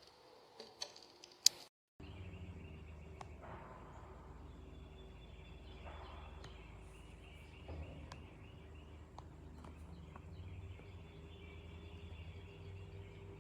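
A few sharp clicks in the first two seconds, the loudest about a second and a half in, then after a brief cut a faint outdoor background with a steady low hum and small birds chirping over and over.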